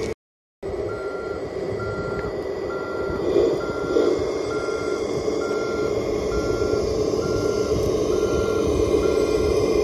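HUINA K3362 RC tipper truck's sound module sounding a reversing beeper: short beeps at one pitch, about one a second, over a steady droning hum. The sound starts after a brief dropout just after the start.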